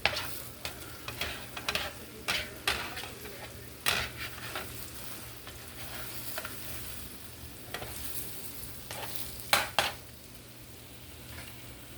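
Omelet frying in butter in a pan, a steady sizzle, with a utensil scraping and knocking against the pan several times, the loudest pair of knocks near the end.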